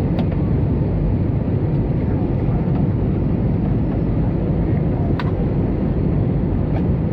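Steady low rumble of an Airbus A320's engines and airflow, heard inside the passenger cabin. Two short sharp clicks stand out, one just after the start and a louder one about five seconds in.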